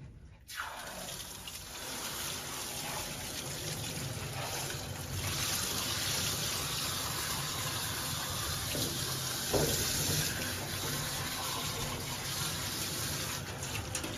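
Spray of water rinsing shampoo out of a dog's coat during a bath. It starts about half a second in, runs steadily, and gets a little louder about five seconds in.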